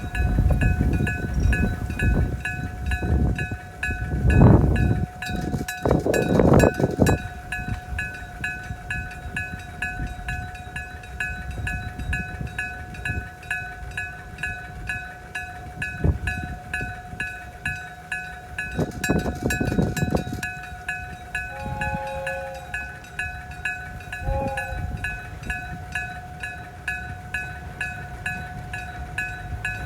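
Japanese level-crossing electric gong bell (denshō type) striking steadily at about two strikes a second, sounding its warning that a train is coming. Low rumbles swell up twice beneath it.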